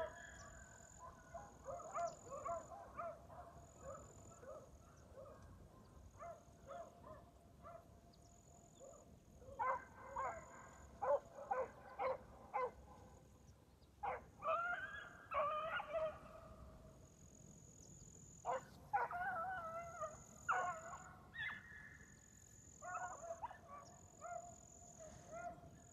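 A pack of young beagles baying faintly while running a rabbit: clusters of short chop barks and longer drawn-out bawls, with pauses between.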